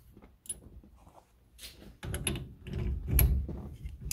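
Faint clicks, then from about halfway in a run of louder metallic clicks and clatter as hand tools and small parts are handled and a socket wrench is worked onto the nut on the steering column shaft.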